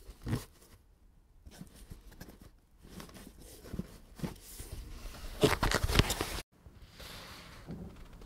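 Handling noise of rustles and light knocks, building to a louder rustle between about five and six and a half seconds that cuts off suddenly.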